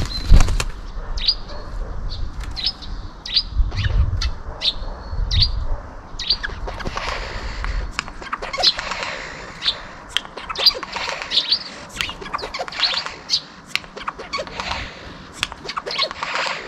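Eurasian jay mimicking other sounds: a run of short high chirps, then from about six seconds in rapid harsh rasping phrases. A low rumble runs under the first eight seconds.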